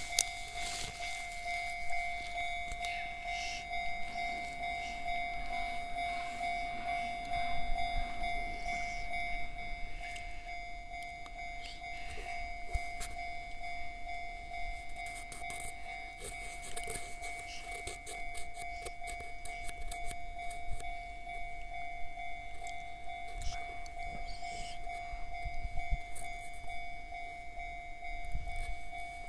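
Japanese level crossing warning bell ringing steadily, its electronic alarm tone repeating without a break.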